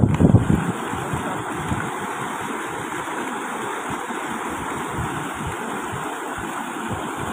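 Fast-flowing floodwater rushing past as a steady hiss of moving water. Wind buffets the microphone briefly at the start.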